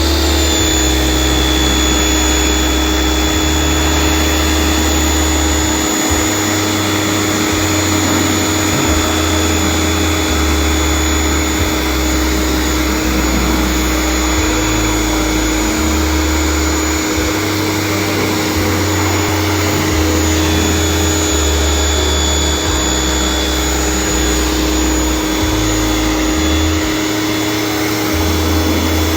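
Electric motor-driven machine spinning up at the start and then running steadily with a constant whine throughout.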